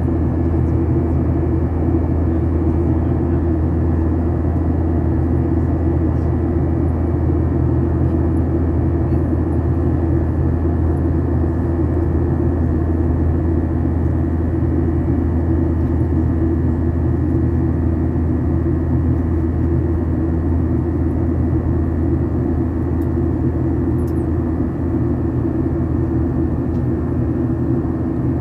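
Steady cabin drone of an airliner climbing after takeoff: engine and airflow noise, deepest and strongest at the low end, with a faint steady high tone running through it.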